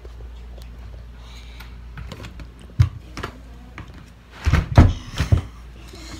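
A steady low hum with a few faint clicks and one sharp click, then a quick cluster of loud knocks and thumps about four and a half seconds in.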